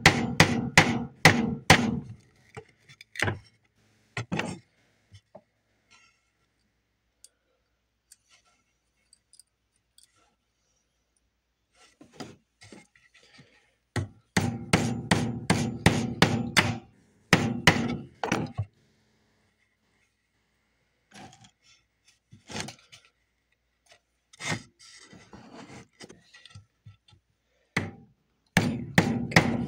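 Hammer striking a crooked nail on a wooden board to straighten it, in quick runs of blows at about three a second, with pauses between the runs. Quieter scraping and handling sounds fill the pauses.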